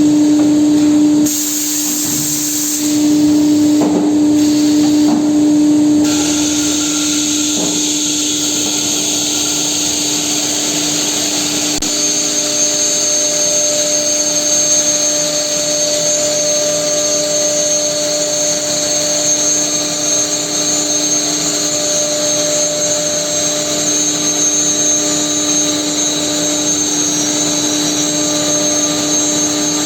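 Four-spindle CNC nesting router running: a steady, loud machine whine with several held tones and a hiss, its character changing abruptly a few times in the first six seconds.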